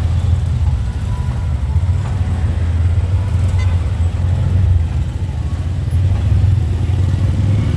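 City street traffic: a steady low engine rumble from motorcycles and motorcycle tricycles moving slowly close by.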